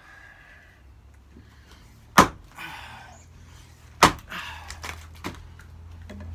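Axe splitting firewood: two sharp strikes into a log round on a chopping block, about two seconds apart, each followed by a brief noisy rattle, then a smaller knock about a second after the second strike.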